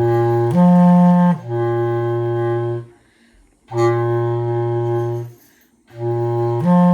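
A single low-pitched instrument playing a slow phrase of long held notes: a sustained low note with a brief step up and back down, a short rest, then the phrase starting again.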